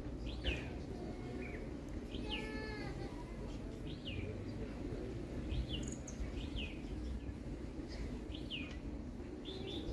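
Small birds chirping: short, high, falling chirps about once a second, over a steady low background rumble.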